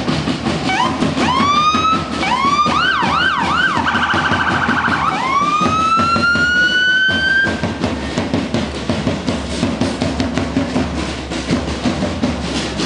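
An emergency-vehicle siren sounds for the first seven or so seconds: a few short rising whoops, a quick up-and-down yelp, a fast warble, then one long rising wail that fades out. Drums beat steadily underneath.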